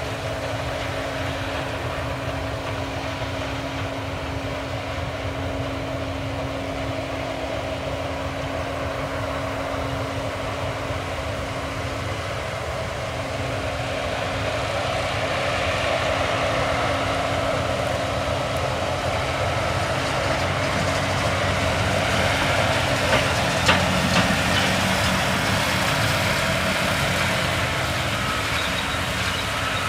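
Case combine harvester running while harvesting barley, a steady engine drone with a constant machine hum. It grows louder about halfway through, with a few sharp clicks near the end.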